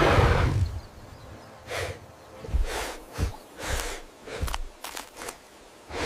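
Sound-effect breathing of computer-animated dinosaurs. It opens with a loud hissing exhale lasting under a second. A string of short sharp snorts follows, several in quick succession.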